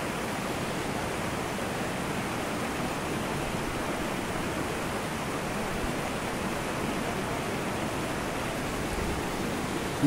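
Steady rush of water flowing over rocks in a shallow mountain stream.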